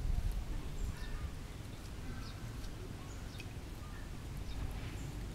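Outdoor ambience: a steady low rumble, with scattered faint, short high chirps and squeaks.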